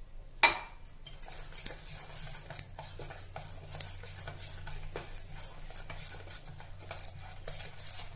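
A steel spoon stirring thick, wet black-chickpea and semolina batter in a steel bowl: one sharp clink of metal on metal about half a second in, then a run of small irregular scrapes and clicks, over a steady low hum.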